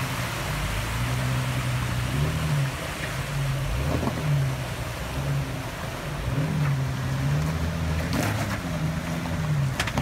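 2004 Jeep Wrangler Rubicon's 4.0-litre inline-six running at low revs, its pitch swelling and dipping as the throttle is fed on and off while crawling over rock ledges. Rushing creek water runs underneath it.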